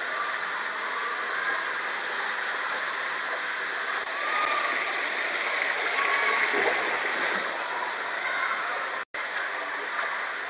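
Water rushing through a 72 m enclosed tube waterslide as a rider slides down it: a steady loud hiss of flowing water with a few faint high squeaks. The sound cuts out for an instant about nine seconds in.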